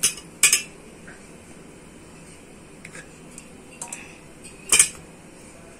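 Steel knife clinking against a steel pressure cooker and plate as boiled potatoes are lifted out on it: three sharp clinks, one at the start, one about half a second in and one near the end, with a few fainter taps between.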